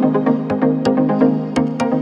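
Background music: an electronic track with a steady beat.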